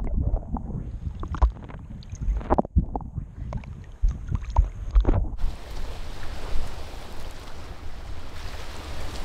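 Muffled, irregular splashing and sloshing of lake water around an action camera held at the surface by a swimmer, with occasional knocks. About five seconds in it changes to the steady wash of waves on a rocky shore, with wind noise on the microphone.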